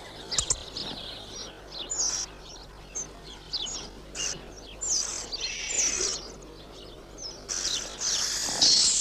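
Young robins begging for food: thin, high chirps and short downward squeaks at irregular intervals, swelling into a loud, continuous clamour of begging calls near the end.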